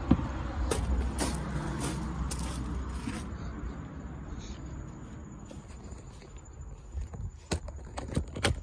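Footsteps and knocks from handling the phone while walking, over a low rumble that fades after about three seconds, with a few sharp knocks near the end.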